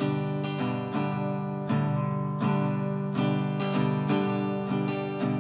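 Acoustic guitar strummed in a steady rhythm, about three strums a second, on a G major chord with the B and high E strings fretted at the third fret, so high ringing D and G notes sit on top of the chord.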